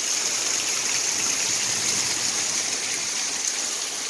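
Heavy downpour: a steady hiss of rain, with water pouring off the roof edge in streams onto the ground and a barrel smoker.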